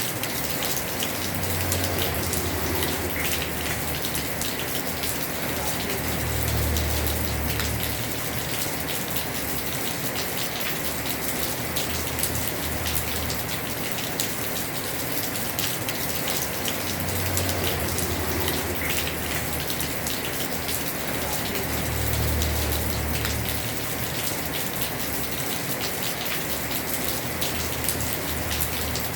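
Heavy rain drumming steadily on a house roof, thick with fine drop impacts, with a low rumble that swells and fades several times.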